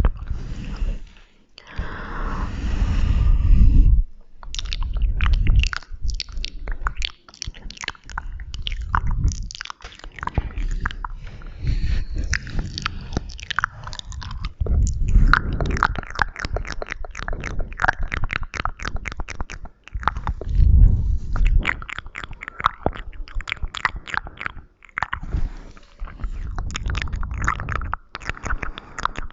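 Close-miked ASMR mouth sounds: quick wet clicks and smacks of the lips and tongue in dense runs, with patches of low rumbling between.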